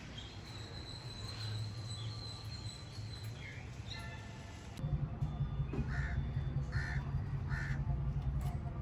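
Pet cockatiel and budgies calling: a long steady high whistle, then three short harsh calls about a second apart over a low rumble that starts about halfway.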